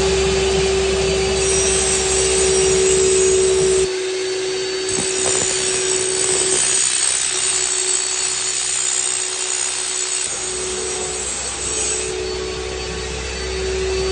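A motor-driven extruder running with a steady hum. After a cut about four seconds in, an abrasive chop saw cuts through steel.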